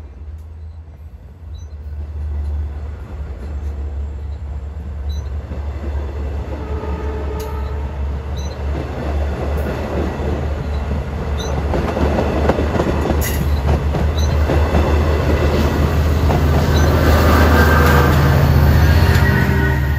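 Long Island Rail Road bi-level commuter coaches rolling past, with wheels clattering over the rails and a deep rumble. It grows steadily louder and is loudest near the end, as the diesel locomotive at the end of the train goes by, then eases off.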